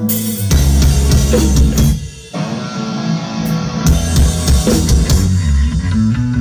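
Metalcore band playing live: drum kit and heavy guitars come in together about half a second in, break off for a moment about two seconds in, then carry on.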